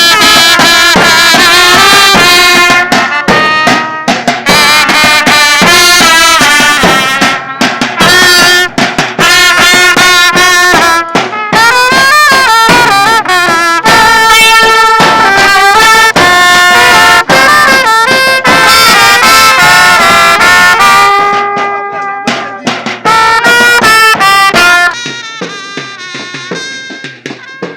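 Loud brass band music with trumpets and drums playing a melody. It drops in level about three quarters of the way through and again near the end.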